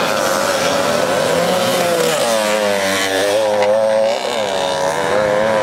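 A pack of vintage motocross motorcycles passing close by on a dirt track, several engines revving up and falling off over one another.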